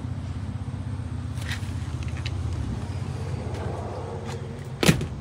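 Steady low engine-like hum, as of an idling vehicle engine, with a sharp click near the end.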